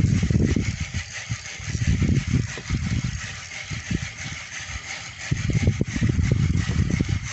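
Strong wind buffeting the microphone in uneven low rumbling gusts, over a steady hiss.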